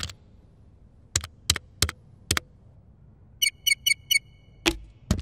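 Single computer-keyboard key clicks, then a quick run of five short high electronic beeps, then two more clicks.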